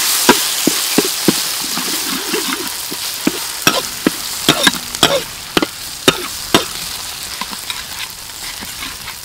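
Minced garlic and chilli sizzling in oil in a metal wok as they are stirred, with a metal ladle repeatedly clicking and scraping against the pan. The sizzle grows gradually fainter.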